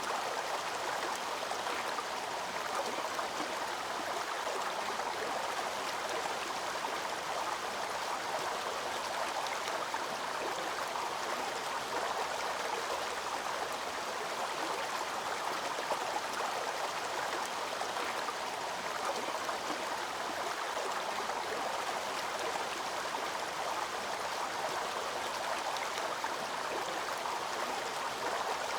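Waterfall cascade: water rushing and splashing in a steady, unbroken hiss.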